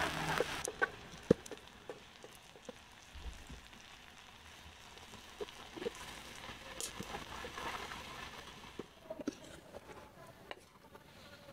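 Faint sizzle of vegetables stir-frying in a wok over a wood fire, dying away within the first second, followed by a low hiss and sparse light clicks and taps of a utensil.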